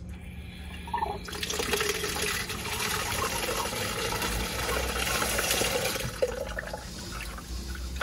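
Water gushing out of a water source heat pump's opened strainer port into a small plastic bucket as the water line is back-flushed to clear out debris. It starts about a second in and eases off near the end.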